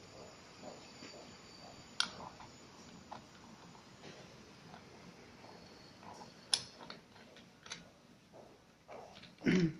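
A few sharp metallic clicks spaced seconds apart as hands work the metal parts of a pad printing machine's ink cup mount, then a louder, duller knock near the end.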